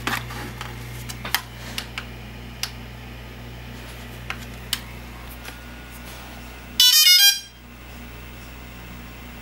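DJI Phantom 3 Professional drone powering on: a short run of quick electronic startup beeps, under a second long, about seven seconds in. Before it come a few light clicks as the drone is handled and set down.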